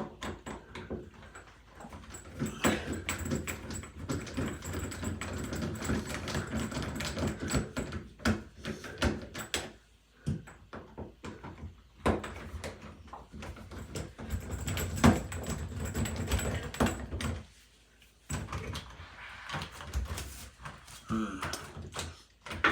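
Irregular clicks, knocks and rattles of a metal door knob and latch being handled and unscrewed on an interior door, with short quiet pauses between bouts.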